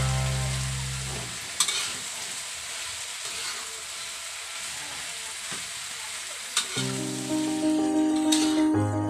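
Mixed vegetables sizzling as they stir-fry in a wok, with a metal spoon stirring and knocking twice against the pan. Background music fades out within the first second or so and comes back about two-thirds of the way through.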